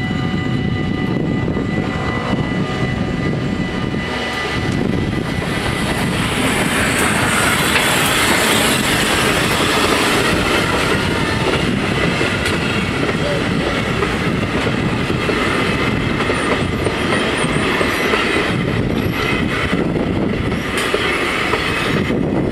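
VSM heritage steam train of vintage passenger coaches rolling over a level crossing. The wheel rumble rises to its loudest about eight seconds in and holds steady after that. The crossing's warning bells ring steadily throughout.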